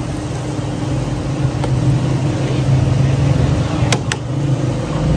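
A motor vehicle engine running steadily, with two sharp clicks close together about four seconds in.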